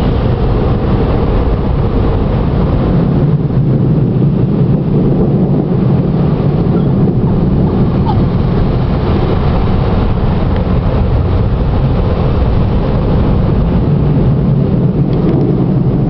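Automatic car wash machinery running around the car, heard from inside the cabin as a loud, steady rushing noise.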